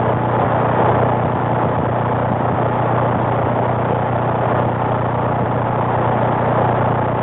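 CB radio receiver on channel 19 AM putting out steady static hiss with a low hum under it, with no voices on the channel.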